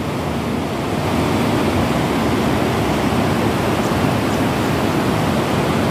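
Seti Gandaki river rushing through a deep, narrow gorge below, a steady, unbroken noise of running water.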